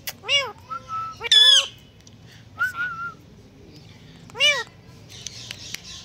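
Indian ringneck parakeet giving four short chirping calls that rise and fall in pitch, the second the loudest and the third a short wavering note.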